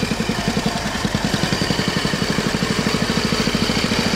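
Vintage motorcycle with a sidecar running at low speed, its engine beating evenly and steadily.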